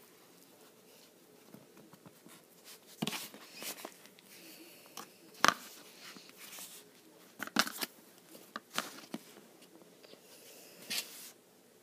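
Crumbly cornstarch-and-shampoo 'butter slime' being squeezed and pulled apart by hand, giving irregular clicks and crackles. They start about three seconds in and are loudest about halfway through.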